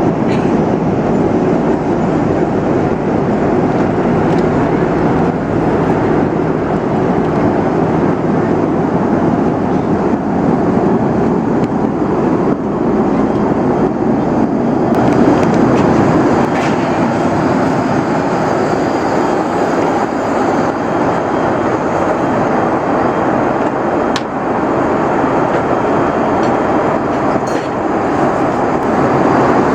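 Steady, loud rumble of an Airbus A330-300 airliner heard from inside the passenger cabin: engine and airflow noise with a few faint clicks.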